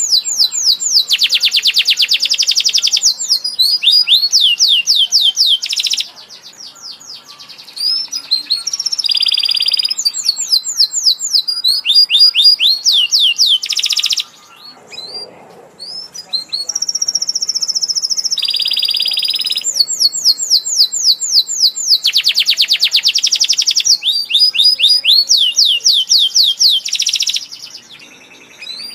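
Domestic canary in full song, singing loud fast trills and rolling high phrases, with short breaks about six, fourteen and twenty-seven seconds in.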